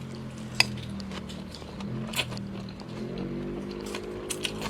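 Eating sounds from a bowl of noodle soup: a few sharp clicks of a spoon or chopsticks against the bowl, the loudest about half a second in. Under them runs a steady low hum that rises a little in pitch past the middle.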